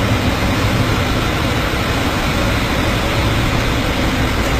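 Storm wind and heavy breaking seas against a tanker ploughing through big waves: a loud, steady roar with a heavy low rumble.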